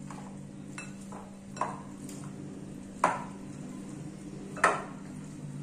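Hands mixing marinated raw chicken wings in a glass bowl, with three sharp knocks against the glass, the last two loudest.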